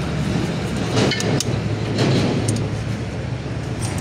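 Hand tools clinking and clicking against the metal of an open car engine's cylinder head, a few sharp strikes over a steady low background hum.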